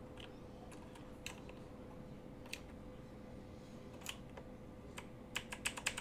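Keys on a Razer BlackWidow Elite mechanical keyboard with clicky green switches being pressed: a few scattered single clicks, then a quick run of about six near the end.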